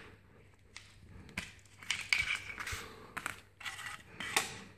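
Handling noise from an injection-moulded plastic holster and a Glock pistol being picked up and moved about: a string of irregular light clicks and knocks, with some rustling.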